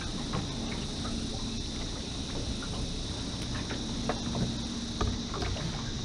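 A steady high-pitched insect drone over a low even rumble of wind and water, with a few light clicks and knocks of gear in the aluminium boat.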